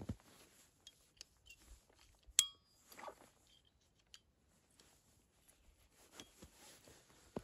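Sparse small handling noises: light clicks and a short rustle, with one sharp, ringing clink of metal or glass about two and a half seconds in.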